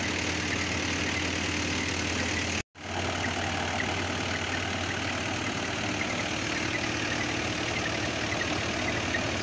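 Tractor-powered portable flour mill (atta chakki) running steadily under the tractor's engine, a constant mechanical hum and drone while it grinds grain into flour. About two and a half seconds in, the sound cuts out completely for a moment, then resumes unchanged.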